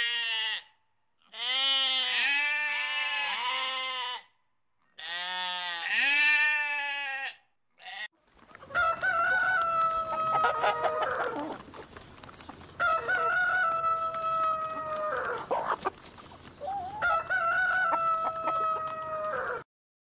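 Sheep bleating, two wavering bleats following the tail of an earlier one, then a cut to a Rosecomb rooster crowing three times. Each crow is a long, steady call of about two and a half seconds.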